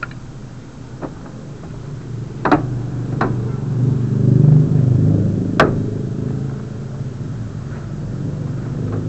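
A motor vehicle's engine rumble that swells and then fades about halfway through, with five or so sharp clicks and knocks scattered through it, the loudest a little past the middle.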